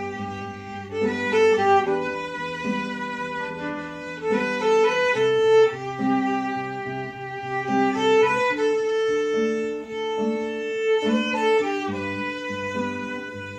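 Violin and acoustic guitar duet: the violin plays a slow melody of long held notes over the guitar's bass notes and chords.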